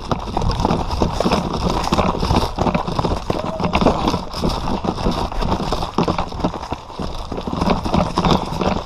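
Footsteps and gear rattle of a player advancing at a run, with rumbling camera-handling and wind noise on the microphone, full of irregular thuds and knocks.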